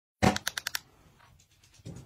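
Sharp clicks and taps of a plastic sunscreen bottle being handled by hand: one loud click followed by a quick run of smaller clicks within the first second, then a few fainter taps near the end.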